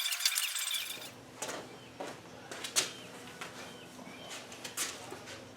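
A hand-held power tool's high hissing whine cuts off about a second in. After that come scattered light clicks and knocks of hand work on metal, with a few faint bird chirps.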